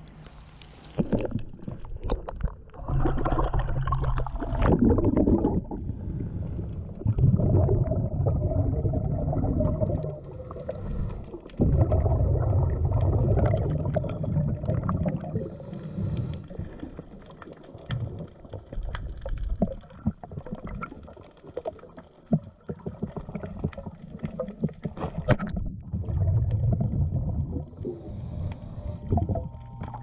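Muffled underwater sound of a diver at a boat hull: low rumbling surges lasting a few seconds, several times over, with scattered clicks and scrapes against the fouled hull.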